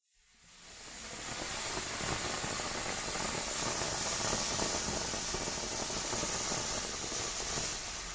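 Colour flowerpot firework (a ground fountain) spraying sparks with a steady, loud hiss and a rough crackle underneath. The hiss builds up over the first second or so and starts to die away near the end.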